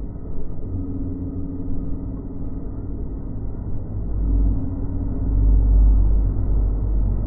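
Nankai 2000-series electric train approaching, its sound slowed down and pitched low: a deep rumble with a faint steady hum, growing louder from about four seconds in.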